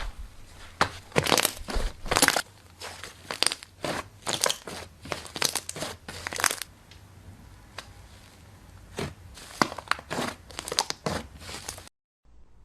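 Slime being squeezed and pressed by hand, giving clusters of sharp crackling clicks. There is a quieter stretch past the middle, and the sound cuts off suddenly near the end.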